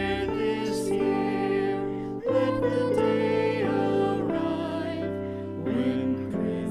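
Slow hymn music: a voice singing over sustained accompaniment chords that shift every second or two.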